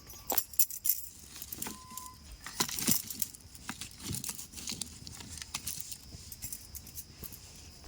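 Irregular light clinks and clatter of kitchen utensils and ingredients being handled during cooking preparation.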